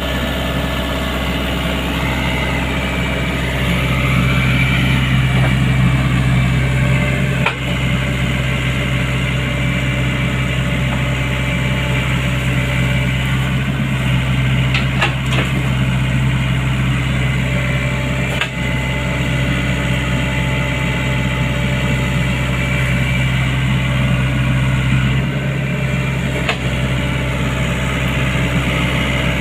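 Sany excavator's diesel engine running steadily, rising slightly about four seconds in, with a few sharp knocks.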